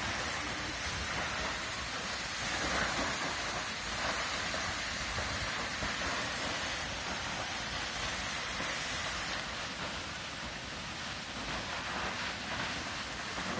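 Vernal Fall, a waterfall, pouring down a rock face into a pool: a steady rush of falling water.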